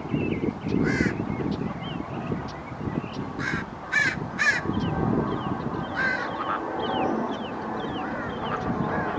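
Harsh bird calls: one about a second in, then a run of three about half a second apart around the middle and another a little later, over many small high chirps from other birds and a steady low rumble.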